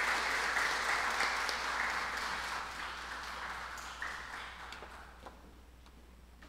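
Audience applause that dies away over about five seconds, ending in a few scattered claps.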